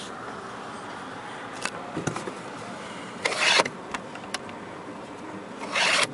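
Handling noises in a car cabin: a light knock, a couple of plastic clicks and two short rustling scrapes as a hand works the interior trim around the sun visor. Underneath is the faint steady hum of the idling 2.0-litre engine.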